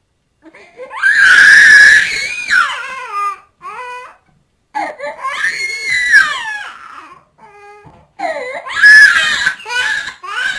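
A baby crying hard: three long, loud wails, each bending up and down in pitch, with short sobbing cries and breaths between them.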